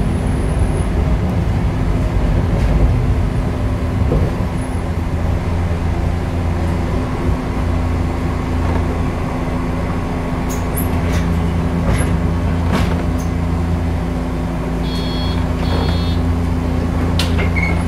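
Diesel engine of a MAN NL263 Lion's City city bus running steadily, heard from inside the bus as it stands at a stop. A few sharp clicks, and two short high beeps near the end.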